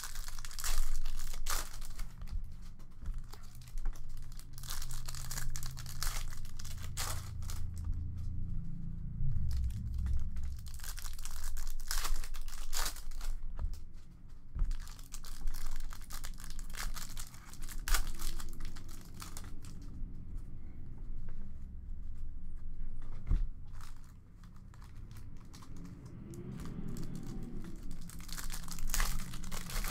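Foil wrappers of Upper Deck Allure hockey card packs being torn open and crinkled by hand, one pack after another, in a steady run of sharp rips and rustles.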